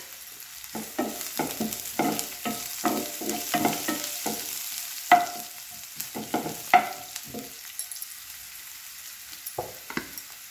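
Wooden spatula scraping and stirring sautéing cumin, garlic, ginger, green chilli and carrot in a nonstick frying pan, with oil sizzling underneath. The strokes come several a second for most of the time, pause briefly, then pick up again near the end.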